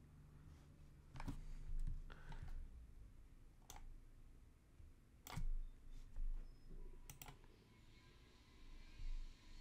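Scattered, irregular clicks of a computer mouse and keyboard, about six in all, some with a dull low thump.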